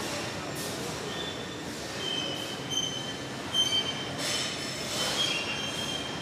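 Overhead slaughterhouse carcass conveyor squealing as its metal trolleys run along the rail: thin high squeals that come and go, over a steady machinery hiss with a few louder hissing rushes.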